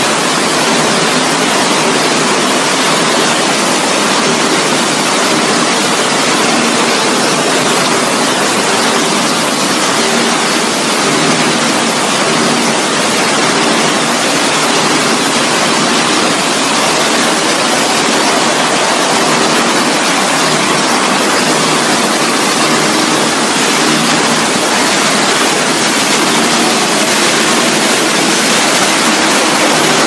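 Loud, steady machinery noise of a PET bottle bale-breaking, label-removing and sorting line running: an even rushing din with a faint hum underneath.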